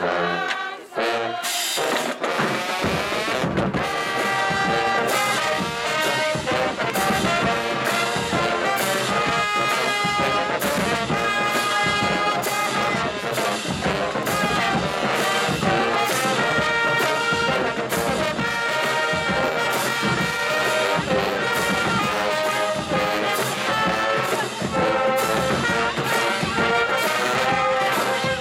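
Marching band playing: brass (trombones and trumpets) over a steady drumline beat, starting up about two seconds in.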